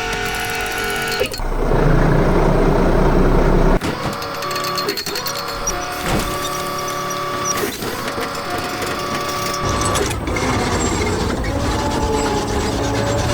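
Construction-machine sound effects: a heavy mechanical rumble, then clunks with short whining tones about every two seconds, then a steady low engine hum from about ten seconds in.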